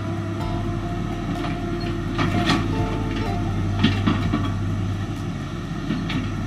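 Tracked hydraulic excavator's diesel engine running steadily at a distance while it digs. A few sharp knocks come through, about two seconds in, near four seconds and near six seconds.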